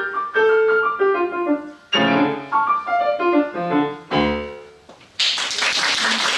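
Steinway grand piano played, the piece ending on a closing chord about four seconds in that rings and fades away. About a second later an audience breaks into applause, which carries on.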